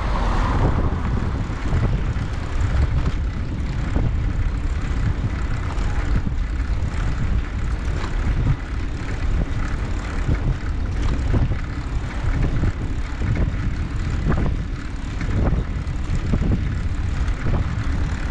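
Steady low rumble of wind buffeting a microphone mounted on a moving recumbent trike, mixed with tyre noise from rolling on tarmac, and a few light knocks from the trike over the road surface.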